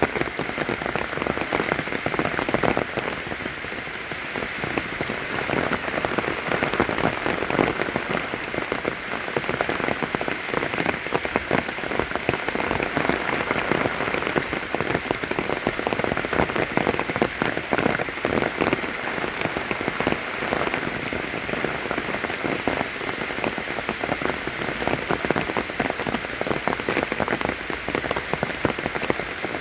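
Steady rain falling, a dense patter of countless drops.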